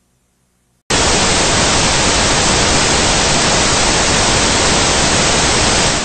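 Analog television static: a loud, even hiss of a channel with no signal, cutting in abruptly about a second in.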